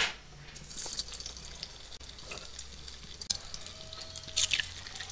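Hot oil in a pan sizzling and crackling as soya-meat balls are dropped in to deep-fry, with a few sharper spits and crackles.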